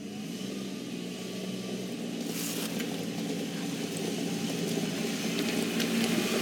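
Kubota utility vehicle's engine running steadily as it drives, growing gradually louder over the few seconds.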